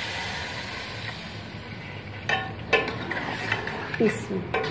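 Water poured into a pot of frying potato masala, hissing and sizzling as it hits the hot oil. About two seconds in a metal spoon starts stirring, scraping and clinking against the metal pot.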